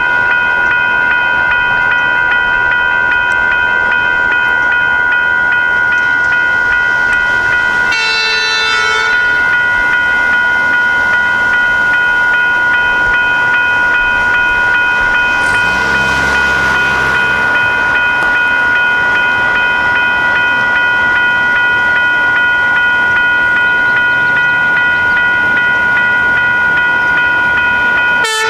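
Railroad grade-crossing warning bell ringing continuously while the crossing is active. About eight seconds in there is a short horn blast of about a second.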